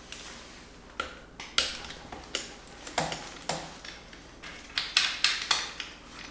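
Socket wrench on a long extension working a transmission-to-engine bolt: irregular sharp metallic clicks and clinks, a few coming close together about five seconds in.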